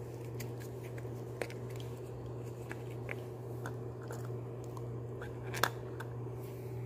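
Pink Play-Doh being pressed into a plastic Play-Doh mold: soft squishing with scattered light clicks of the plastic, a sharper click about a second and a half in and a louder one near six seconds, over a steady low hum.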